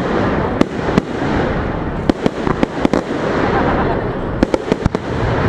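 Fireworks display going off: scattered sharp bangs and crackles, with a quick run of them about four and a half seconds in, over a constant noisy background.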